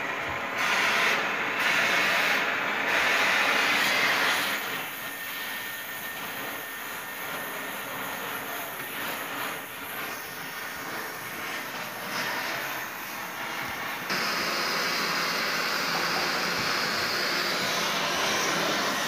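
Gas torch flame hissing steadily as it heats steel, louder for a few seconds near the start and again over the last five seconds.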